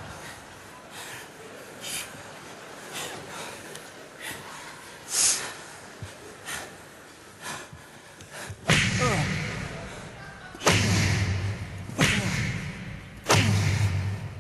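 Thumps and knocks of a staged stage fight: light scattered knocks, then four loud thuds roughly a second or two apart, each ringing out briefly in the hall.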